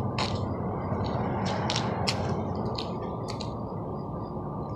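Small birds chirping in short, high, falling notes, several a second, over a steady low rushing noise.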